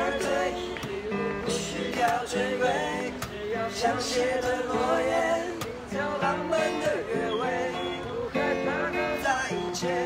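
Acoustic guitar strummed as accompaniment to a group of young voices singing a song together.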